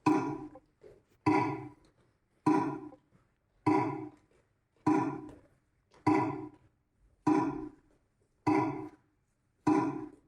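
A short pitched percussive knock repeated evenly about once every 1.2 seconds, nine times, each one striking sharply and ringing away within half a second.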